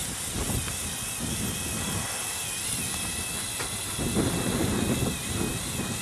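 Electric motors and gear trains of a LEGO Technic motorized bulldozer whining as it drives on its tracks through snow, the high whine wavering slightly in pitch.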